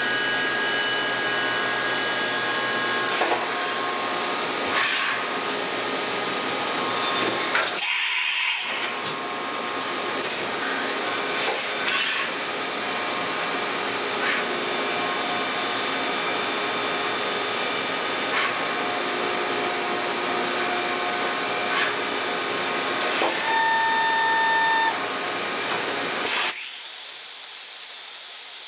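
Kiwa KNH400 horizontal machining center running under power as its rotary pallet table indexes and the table traverses: a steady whir and hiss with several held whines and a few clicks and knocks. Near the end the low hum drops away, leaving only a high hiss.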